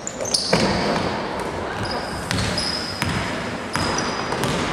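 A basketball bouncing on the court floor about once or twice a second, with sneakers squeaking as players cut and run, the hits echoing through the gym.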